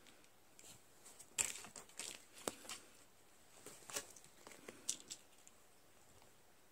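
Crinkling and rustling of a hanging cat toy as it is knocked about, in a run of sharp crackles and taps from about a second and a half in until about five seconds in.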